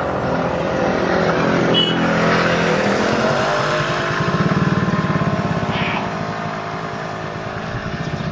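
Motor vehicle engine running, its pitch dipping and then rising again about two to three seconds in, followed by a louder, evenly pulsing throb.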